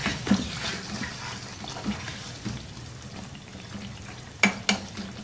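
Chicken karahi sizzling in hot ghee in a wok while a spatula stirs it through the thick gravy. There are two sharp knocks of the spatula against the pan near the end.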